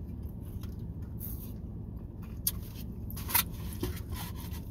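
A few short sips and slurps through a straw from a foam cup, the sharpest about three and a half seconds in, then a brief rustle of a hand brushing through hair near the end, over a steady low hum inside the vehicle's cabin.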